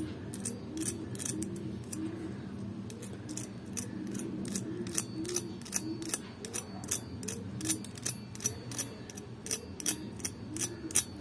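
A steel fork tapping and scraping on the crisp crust of deep-fried, rice-flour-coated cauliflower florets, giving a run of dry crunchy clicks and crackles that grow more frequent and louder in the second half. The crackle is the sign of a crust fried crisp.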